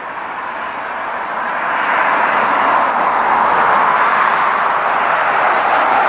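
Steady rushing vehicle noise that grows louder over the first two seconds and then holds.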